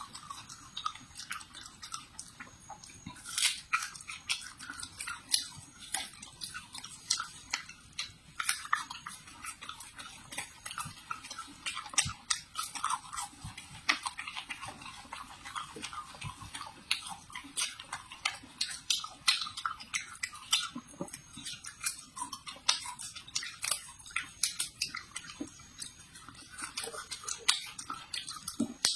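Chewing and biting raw flowers: irregular crisp crunches and wet mouth clicks, with no talking.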